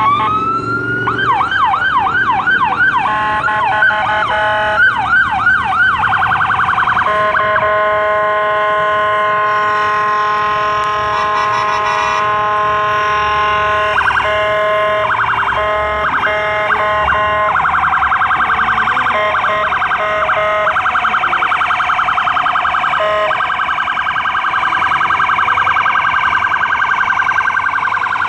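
Ambulance siren cycling through its tones. It rises in a wail, switches to a fast yelp, then gives long steady blaring tones with short breaks, and then goes to a very fast warble.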